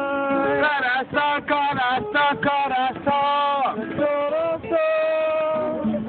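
A man singing loudly in long held notes that slide up and down, with an acoustic guitar being strummed underneath.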